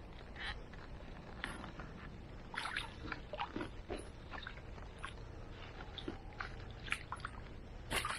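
Small, irregular splashes and sloshes of river water around a landing net held in the shallows, as a barbel being released swims out of the net.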